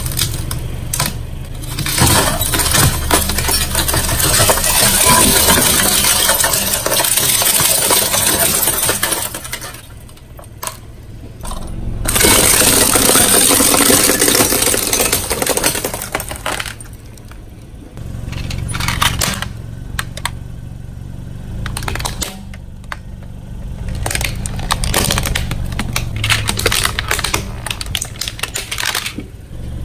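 A car tyre rolling over brittle coloured tubes laid on a bed of upturned nails, crushing them into tinkling shards in two long crackling stretches. Near the end come quieter scattered cracks and crunches over a low rumble.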